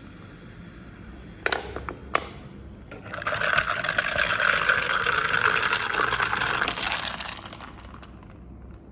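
A couple of clinks of ice in a glass jar, then a drink poured over the ice for about four seconds, with the ice crackling and clinking.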